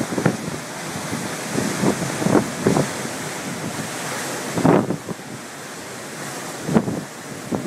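Strong wind buffeting the microphone: a steady rushing noise broken by irregular gusty blasts, the loudest a little past halfway.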